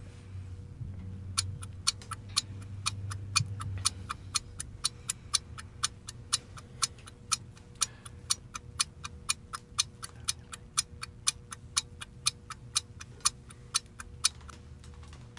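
Clock-style ticking sound effect for a countdown: sharp, evenly spaced ticks, about four a second. It starts about a second and a half in and stops about a second before the end.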